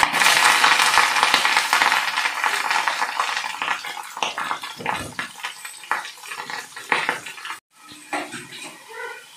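Grated pumpkin frying in hot ghee in a small aluminium kadhai: a loud sizzle at first that fades over several seconds, with a utensil scraping and clinking against the pan as it is stirred. It cuts out briefly near the end, then only quieter stirring clicks.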